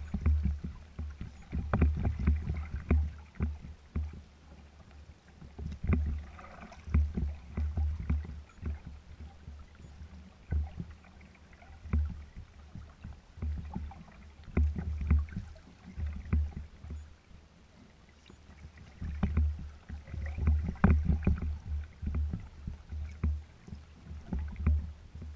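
Small waves slapping against a sailing kayak's hull: irregular low thumps and splashy knocks that come in clusters every few seconds.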